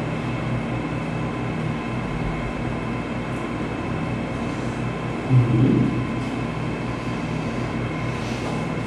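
Steady mechanical hum of room equipment: a low drone with a fixed higher whine above it. A brief low sound comes about five seconds in.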